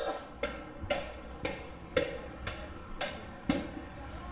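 Footsteps on a hard surface, steady at about two steps a second, each a sharp knock.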